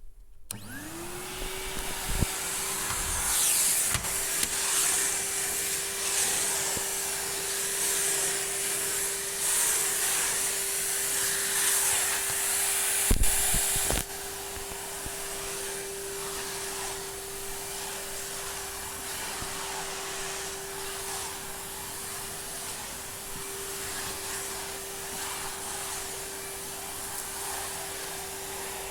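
A 2010 Numatic NRV commercial tub vacuum cleaner switches on and its motor spins up to a steady whine, then runs with a loud rushing suction hiss while hoovering. A couple of knocks come about halfway through, and then the rushing drops to a quieter, even run.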